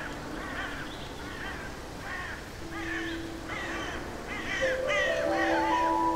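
Birds cawing over and over in a chorus of short, harsh, overlapping calls. Under them, ambient synth music holds long notes, and a chord of higher notes comes in just before the end.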